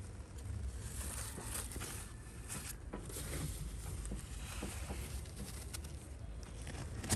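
Rustling of eggplant leaves and gloved hands handling the fruit: scattered soft clicks and brushing over a low steady rumble.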